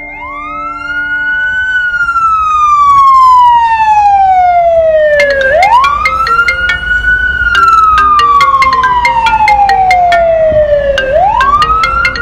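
Emergency vehicle siren wailing loudly: each cycle rises quickly, then slides slowly down, starting again about every five and a half seconds.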